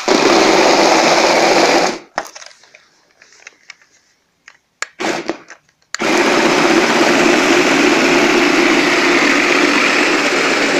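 Flytec amphibious RC stunt car's small electric drive motors and plastic-geared gearboxes running with a loud whirring for about two seconds, then stopping, with a few faint clicks, before running again about six seconds in.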